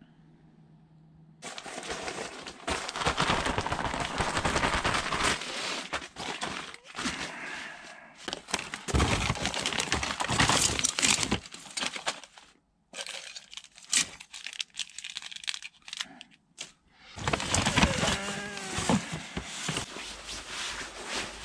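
Plastic bags and wrappers crinkling and rustling under close handling, with many sharp crackles and clicks, broken by a couple of short pauses.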